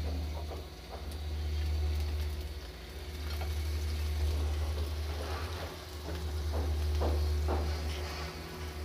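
Chopped onion and onion greens sizzling in hot oil in a pan, over a steady low hum.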